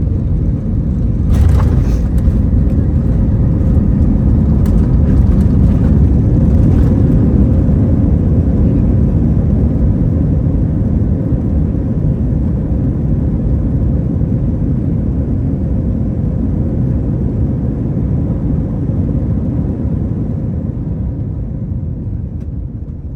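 Airbus A321 cabin noise on landing: a loud low rumble of airframe and engines with a sharp knock about a second and a half in. It grows louder for several seconds and then eases off gradually as the jet slows.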